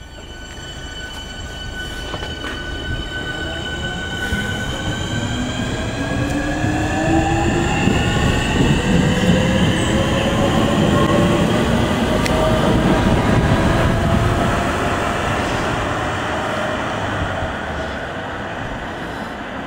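Southeastern electric multiple-unit train running through the station, its traction motors whining over the rumble of the wheels on the rails. Several whining tones slowly slide in pitch as the sound builds to a peak a little past halfway, then eases off.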